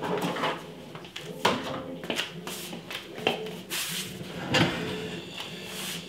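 Irregular clicks and knocks of someone moving about on a tile floor and handling a small mirrored-glass wine fridge.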